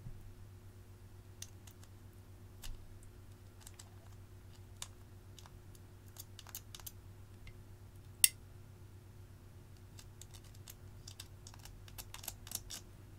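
Metal spoon scraping and tapping inside a small plastic pot of cream makeup as the product is dug out: scattered light clicks, one sharper, louder click about eight seconds in and a quick flurry near the end, over a low steady hum.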